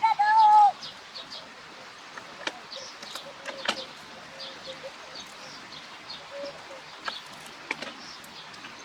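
Free-range chickens calling on a farm, with one loud call right at the start, then short high chirps and a few sharp knocks scattered through.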